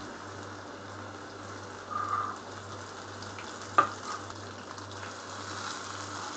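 Goat brain coated in rice flour sizzling steadily as it shallow-fries in hot oil in a pan. A single sharp click sounds just before four seconds in.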